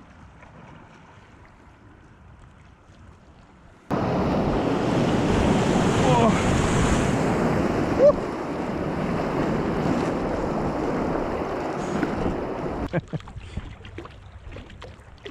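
Rushing river water with wind buffeting the microphone. It is faint at first, jumps abruptly to loud about four seconds in, and drops back near the end with a few knocks.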